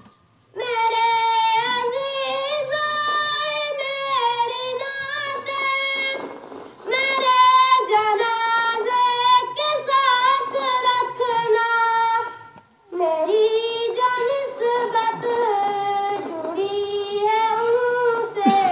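A young schoolboy singing a naat sharif, an Urdu devotional poem in praise of the Prophet, solo into a microphone. He sings in long, wavering melodic phrases with brief pauses for breath: just after the start, about six seconds in and about twelve seconds in.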